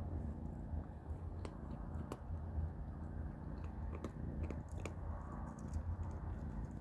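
Kittens crunching dry kibble, with irregular small crunches and clicks over a low steady hum.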